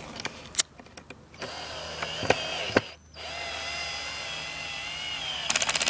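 Power drill with its torque clutch set low, driving a longboard truck mounting bolt in two steady whining runs. Near the end the second run breaks into a rapid clicking as the clutch slips: the bolt is tight and the clutch has stopped the drilling.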